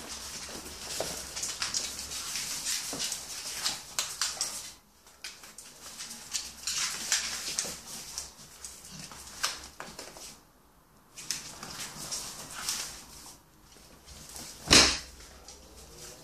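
A bullmastiff puppy and a Staffy-schnauzer cross dog play-fighting: irregular scuffling and claws clicking and scratching on a hard floor, with dog noises, pausing twice. A single loud thump near the end.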